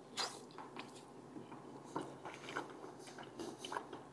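A person biting into a folded slice of pizza and chewing it: a sharp bite just after the start, then irregular crunchy clicks and mouth sounds.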